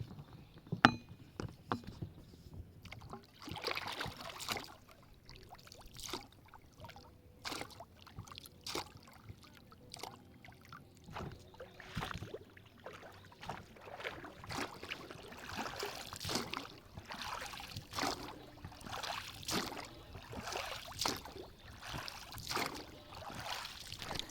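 Water splashing and lapping in irregular swishes, with a single sharp click about a second in.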